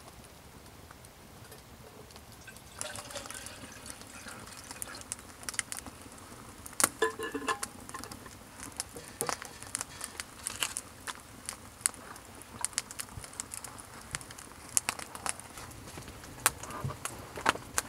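Metal camp cookware, a kettle and cup, clinking sharply as it is handled, with liquid being poured, followed by many short, irregular crackles of a wood fire.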